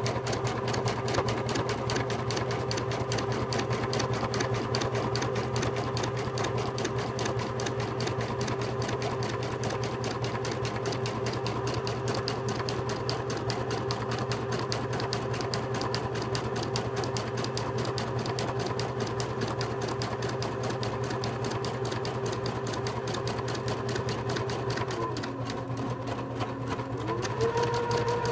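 Home embroidery machine stitching a design in a hoop: rapid, even needle strokes over a steady motor hum. About 25 seconds in the motor pitch drops for a couple of seconds, then rises higher than before near the end.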